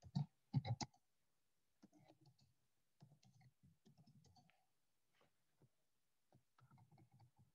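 Computer keyboard typing: faint runs of short key clicks about two seconds in and again near the end, after a few louder taps in the first second.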